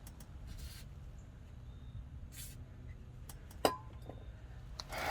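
Two short spritzes from a WD-40 aerosol can, about half a second and two and a half seconds in, then a sharp metallic clink of a part or tool about three and a half seconds in.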